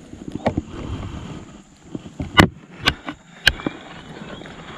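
Three sharp knocks about half a second apart in a small fishing boat, the first the loudest, after a stretch of low rustling handling noise.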